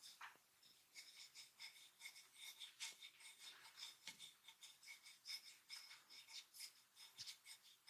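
Faint, quick rubbing strokes of a masseur's hands over skin or hair, a dry scratchy sound repeating about three times a second.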